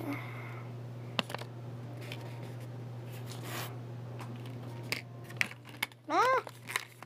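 Fishing jigs being put back into their package: scattered small clicks and a brief rustle of handling. A steady low hum runs underneath, and a short voiced sound from the child comes about six seconds in.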